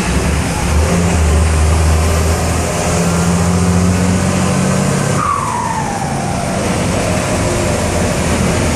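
Turbo-diesel engine of a VW 210 bus pulling under load, heard from inside the cabin, with a turbocharger fitted with a 'pente' to make it whistle. About five seconds in the engine drone eases off and the turbo whistle glides down in pitch over about a second as it spools down.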